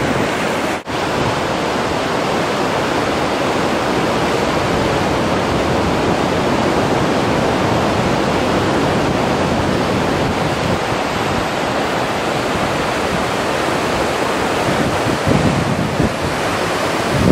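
Large muddy waterfall of the Little Colorado River in flood, a loud, steady rush of falling water. The sound cuts out for an instant about a second in.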